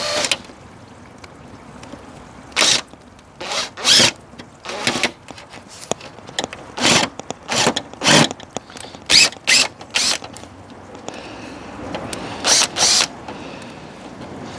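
Makita cordless drill driving a screw into a recycled-plastic panel in about a dozen short trigger bursts with pauses between, easing the screw in so the side pulls up flush.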